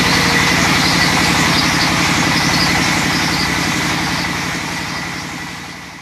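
Sawmill's large vertical band saw running steadily as a log is fed to it, a fast low pulsing under a thin high whine. The sound fades out over the last two seconds.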